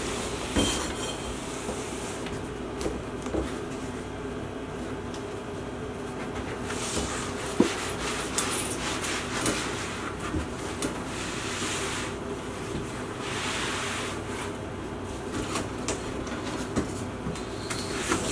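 Cardboard shipping box and packing being handled and shifted: scraping and rustling with scattered knocks, including one sharp knock about halfway through, over a steady low hum.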